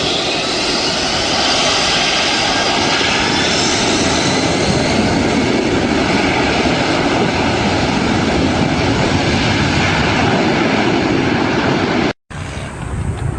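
A fixed-wing aircraft's engines run loud and steady, with a whining tone that shifts in pitch over the first few seconds. Just after twelve seconds it cuts off abruptly, and a quieter rushing noise follows.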